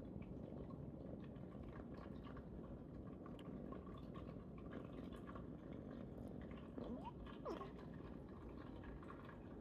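A cat's faint, thin squeak about seven seconds in, one tone gliding up and then one gliding down, as a cat makes when it yawns. It sits over steady low background noise with a few light clicks.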